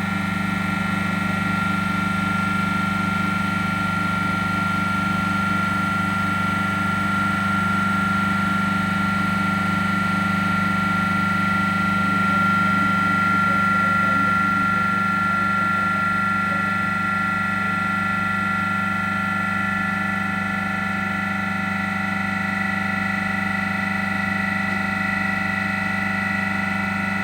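Dorin H2500CC semi-hermetic reciprocating refrigeration compressor running steadily on test, a constant mains-frequency hum with a steady higher whine over it.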